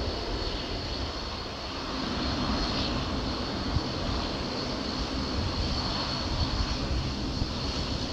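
Jet airliner engines running, a steady high whine over a broad rushing noise.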